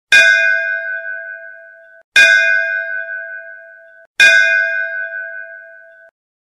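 A bell struck three times, about two seconds apart, each stroke ringing and dying away before it is cut off short.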